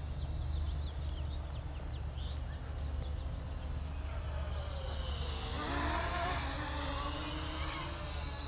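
Helifar H1 toy quadcopter's brushed motors and propellers buzzing, growing louder about two-thirds of the way through as it flies in close. A steady low rumble of wind on the microphone runs underneath.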